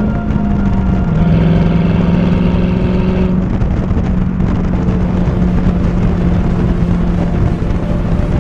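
Ford Mustang engine running at a steady speed under way, its note dropping a little about a second in and then holding, with wind rushing on the microphone.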